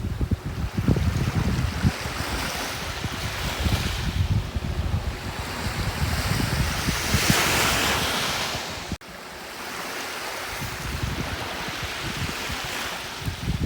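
Gentle sea waves washing onto a beach, with gusts of wind buffeting the microphone in a low rumble. One wave's wash swells and hisses louder about two-thirds of the way through, then the sound drops out for an instant before carrying on.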